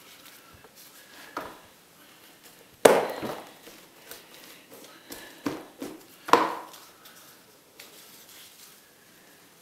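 A few sharp knocks or taps on a hard surface, the loudest about three seconds in and another strong one a little past six seconds, with smaller ones around one and a half and five and a half seconds, each dying away quickly.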